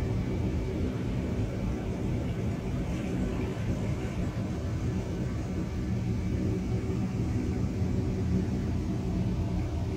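Steady low rumbling drone with faint held tones above it, an ambient 'sound of space' track.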